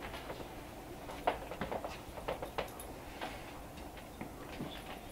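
Faint, irregular clicks and light clinks as summer sausage chubs are hung on the wire racks of an open oven, the hangers knocking against the racks.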